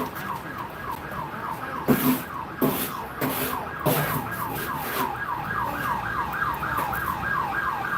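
Emergency-vehicle siren on a rapid yelp, about four sweeps a second. A few sharp knocks come about two, two and a half and four seconds in.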